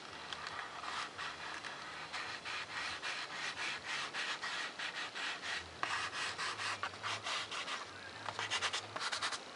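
Fingers rubbing and pressing strips of blue painter's tape down onto 3 mm Depron foam sheet: a run of short scratchy rubbing strokes, several a second, coming quicker near the end.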